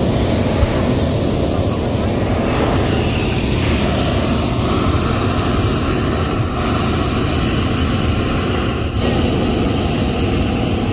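Hot-air balloon propane burner firing in one long, steady, unbroken blast.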